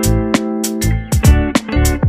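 Background music: a guitar-led track with a steady beat of drum hits.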